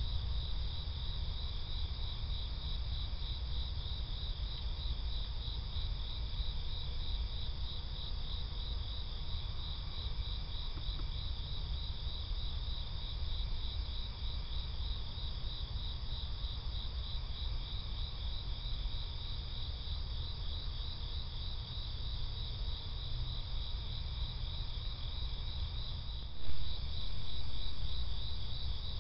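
Chorus of night insects trilling in a steady, fast pulse, over a low rumble. A single brief thump sounds near the end.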